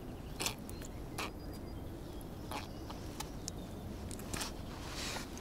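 Hands unhooking a small bream: scattered light clicks and scrapes of fingers, hook and fish, a handful of them spread over a few seconds, over a low steady rumble.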